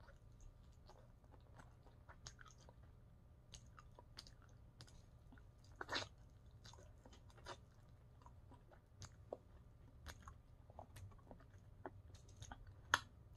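Quiet chewing and biting of buffalo chicken wings: scattered wet mouth clicks and small crunches, with a sharper crunch about six seconds in and another near the end.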